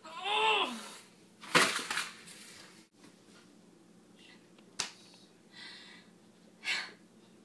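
A woman sneezing: a drawn-in 'ah' whose pitch rises and falls, then a loud, sharp 'choo' about a second and a half in. A few quieter noises follow, among them a sharp click.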